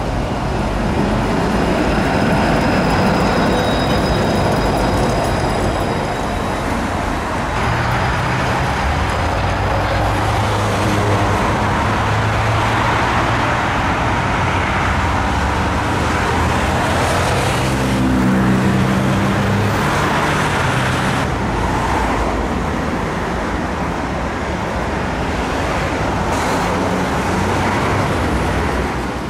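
Street traffic noise with trams moving along street tracks. Motors give a steady low drone that swells in the middle.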